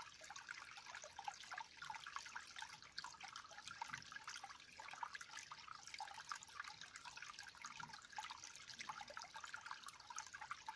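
Faint trickling water: a steady, dense patter of small drips and splashes.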